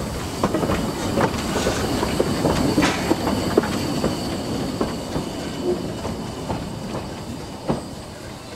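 Vale of Rheidol Railway No. 8 Llywelyn, a narrow-gauge steam side-tank locomotive, running past close by, its wheels clicking over the rail joints. It is loudest in the first few seconds, then fades as it moves off.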